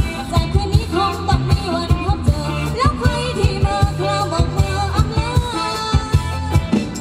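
Live Thai ramwong dance band music: a steady drum beat and bass under a sung melody.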